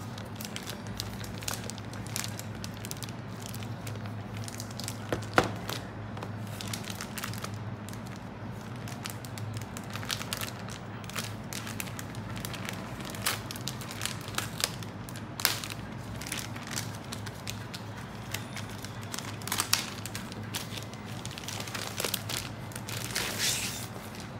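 Clear plastic protective bag around a laptop crinkling and crackling as its seal sticker is peeled off and the bag is pulled away, in many short, irregular crackles over a steady low hum.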